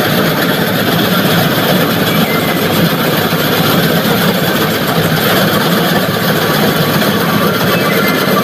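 John Deere combine harvester's diesel engine running steadily as the machine drives slowly through a muddy paddy field.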